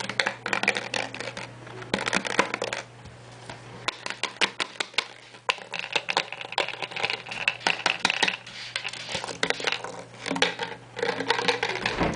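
Thin plastic Aquarius drink bottle being handled and squeezed, crinkling and clicking in quick, irregular bursts, over a steady low hum.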